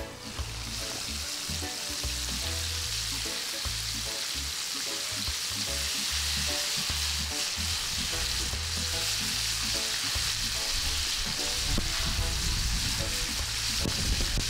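Pieces of flour-coated chicken deep-frying in hot oil: a steady, dense sizzle that grows louder within the first second and then holds.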